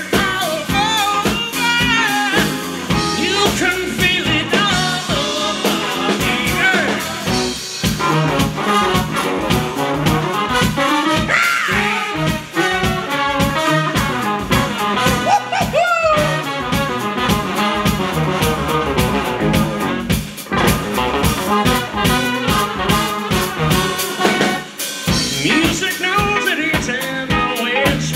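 Live band playing: a horn section of trumpet, saxophone and trombone over electric bass, drum kit and electric guitar, with a steady drum beat.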